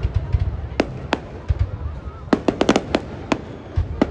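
Fireworks going off: scattered sharp cracks and pops, with a quick run of several bangs about two and a half seconds in, over a low rumble.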